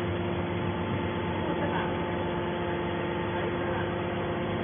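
Hydraulic scrap metal baler's power unit, an electric motor driving the hydraulic pump, running steadily with an even hum and a few constant tones.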